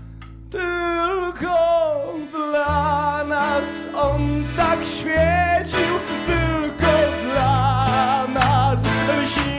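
Live rock band with guitar and a stepping bass line under a singer's long, high held notes with heavy vibrato. The voice enters about half a second in, sliding up and down.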